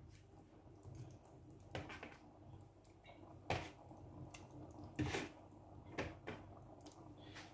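Pieces of smoked mackerel being laid onto wet coconut rice in a steel pot: a handful of soft, short squishy taps, the loudest about three and a half and five seconds in, over a faint steady hum.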